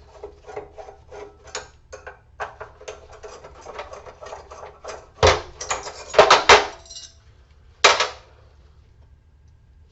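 Small clicks and rattles of hand tools and metal parts being handled while a piece of scrap is taken apart, then a few loud sharp knocks about halfway through and one more a little later.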